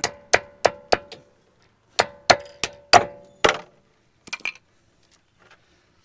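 Hammer blows on steel, pounding the retainer spring clip out of a Chevrolet P30 front brake caliper: two quick runs of about five sharp, ringing metal-on-metal strikes each. A few light metallic clinks follow about four and a half seconds in.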